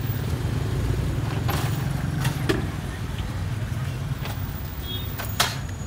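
Steady low engine rumble of motor traffic, with a few sharp metallic clicks and clinks over it, the loudest about five seconds in.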